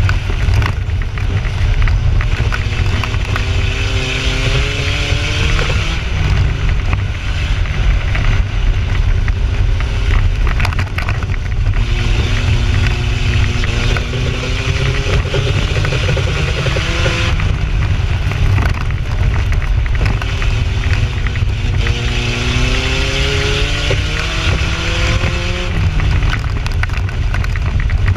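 2WD Toyota 4Runner's engine heard from inside the cab while racing on a dirt oval, over a heavy, constant low rumble. The revs climb three times, about ten seconds apart, and ease off in between, as it accelerates down each straight and lifts for the turns.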